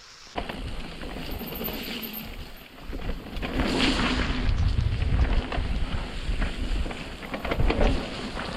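Mountain bike riding down a wet, muddy trail: rushing wind on the microphone and tyre noise through mud and water, with scattered knocks and rattles from the bike. The noise starts suddenly and gets louder about three and a half seconds in.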